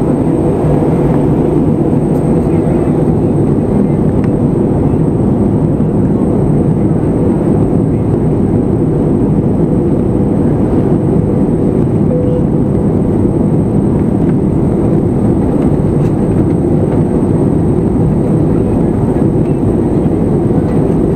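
Steady cabin noise of a jet airliner in flight: an even, low rumble of engines and rushing air heard from a window seat, with a faint steady hum running through it.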